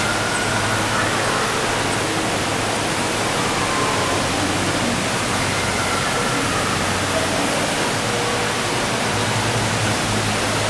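Steady rushing noise filling the enclosed conservatory dome, with a constant low hum under it and faint voices of other visitors.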